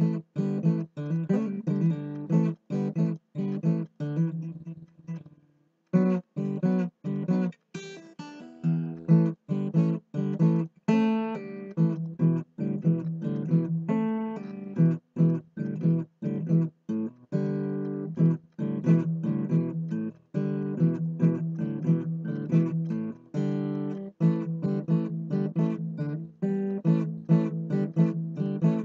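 Background music: acoustic guitar strummed and picked in a steady rhythm, with a brief pause about five seconds in.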